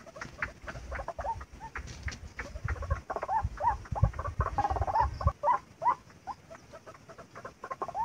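White-breasted waterhen calling: a rapid run of short, hoarse notes, several a second. A low rumble sits under the calls from about three to five seconds in.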